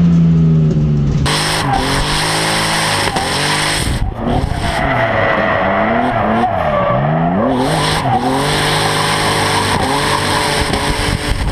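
BMW drift car's engine revving up and down again and again, with tires screeching and skidding through a drift that starts about a second in.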